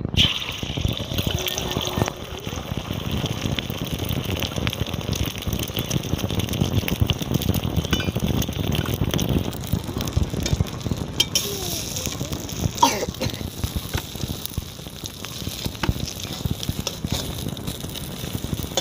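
Beaten egg frying in hot vegetable oil in a kadai, a steady crackling sizzle that sets in sharply at the start, with a few sharper knocks along the way.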